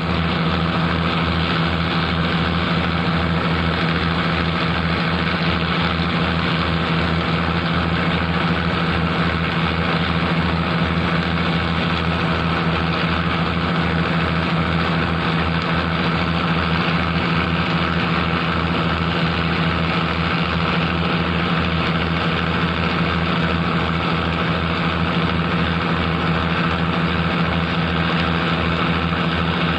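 A large engine idling steadily, with an even low throb that does not change.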